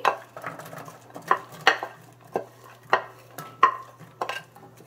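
A wooden spoon scrapes and knocks diced carrots, onions and celery off a ceramic plate into a stainless steel pan. The sound is an irregular string of clicks and clatters, a few of them ringing briefly.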